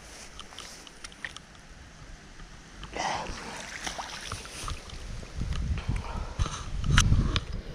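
Water splashing as a landing net holding a small pike is lifted out onto the bank, starting about three seconds in, followed by scattered knocks and clicks of the net and tackle being handled. Near the end there is a low rumble of buffeting on the microphone.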